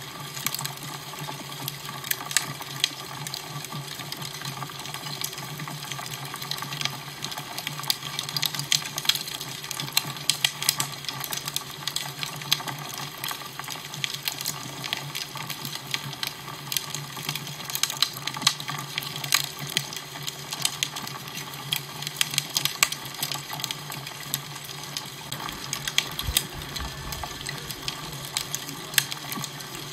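Fireplace fire crackling, with frequent small pops over a steady rushing hiss and a low steady hum.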